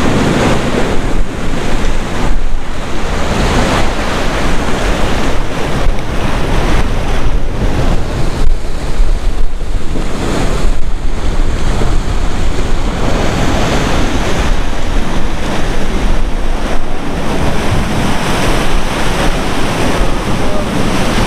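Sea surf washing against a rocky shore, with strong wind blowing on the microphone and a steady low rumble.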